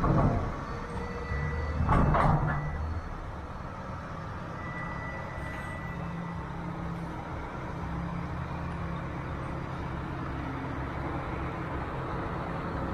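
Heavy truck's diesel engine running steadily, with two loud hisses, one at the start and one about two seconds in, and a short high beep about five seconds in.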